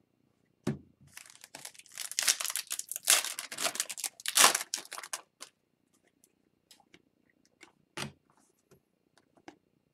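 Foil wrapper of an O-Pee-Chee Platinum hockey card pack crinkling and tearing open for about four seconds. A soft knock comes just before it, and a few light clicks of cards being handled follow.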